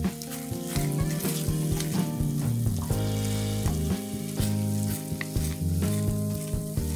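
Sofrito and tomato paste sizzling in a hot enamelled pot while a wooden spatula stirs and scrapes through it, with soft background music of sustained low notes underneath.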